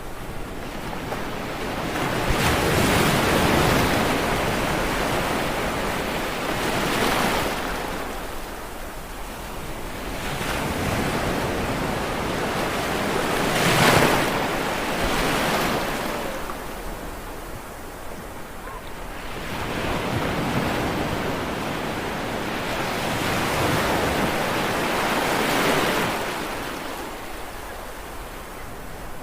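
Sea waves breaking on a shore, each one rising to a rushing crash and washing back, every few seconds; the loudest break comes about halfway through. Wind is heard on the microphone as well.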